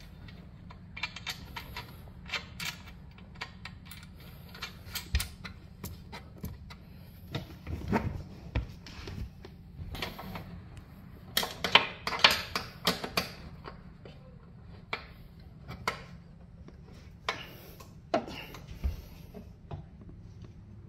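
Irregular metallic clicks and taps of a spanner fitting onto and turning nuts and bolts on a rowing machine's steel frame, busiest a little past halfway.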